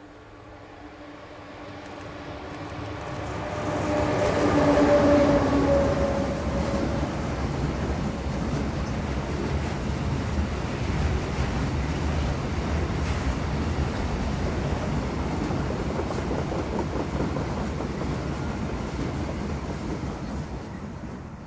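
HŽ 1141-series electric locomotive hauling a container freight train approaches and passes close by, its hum loudest about five seconds in. Then comes the steady rolling rumble of the container wagons on the rails, easing off near the end.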